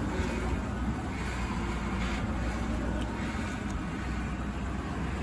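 Panther-body Ford's 4.6 L V8 idling while the steering is worked, with the power steering pump giving a whine under load that the owner calls typical for these cars.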